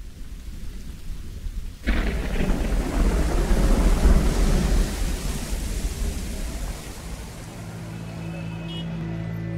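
Rain falling, then a clap of thunder about two seconds in that rumbles for several seconds and fades. A low, steady musical drone comes in near the end.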